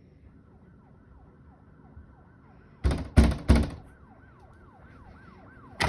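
Police siren wailing in quick rising-and-falling sweeps, about two a second, growing louder, with three loud knocks about three seconds in and another at the very end.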